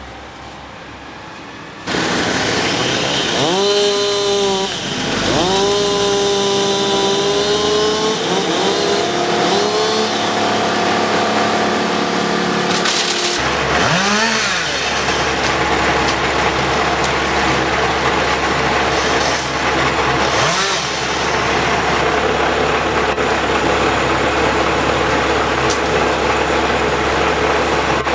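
Chainsaw starting suddenly about two seconds in and running loud, its pitch rising and levelling off with the throttle as it cuts limbwood. A steady low engine hum from other machinery joins about halfway through.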